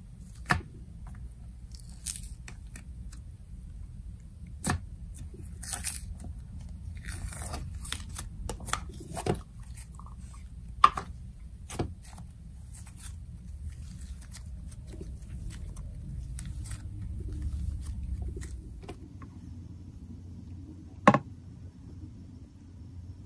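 Fingers poking into and stretching a soft cookie dough slime with crunchy cookie-chunk add-ins: quiet squishing and crunching broken by scattered sharp pops and clicks. A loud sharp click about two seconds before the end.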